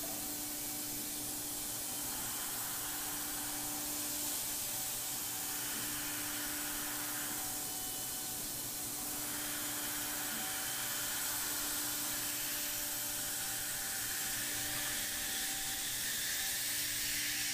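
Thermwood 5-axis CNC router running: its spindle turns a small 1/8-inch cutter routing holes in a polyethylene part. The sound is a steady hiss with a few constant hum tones under it.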